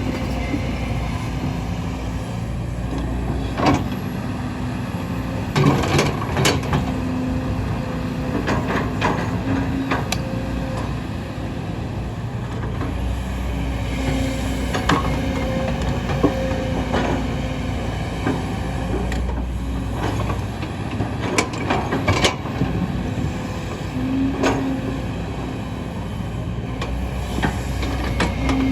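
Kobelco hydraulic excavator running steadily under load while it digs into a hillside, the engine note rising and falling as the hydraulics work. Irregular sharp knocks and clanks sound a dozen or so times.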